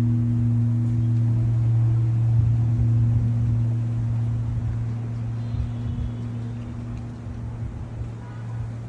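Large pagoda bell ringing on after a strike, a steady low hum that slowly fades; its higher overtone dies away about three or four seconds in, while the deep hum carries on.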